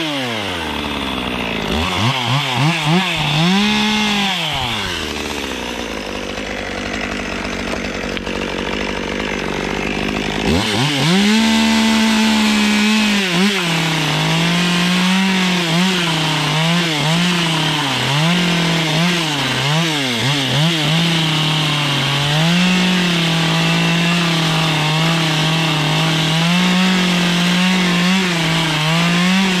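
Stihl chainsaw revving briefly twice, then idling. About ten seconds in it goes to high revs and cuts a row of slits into the end of a fir board, the engine note dipping and recovering again and again as each cut loads it.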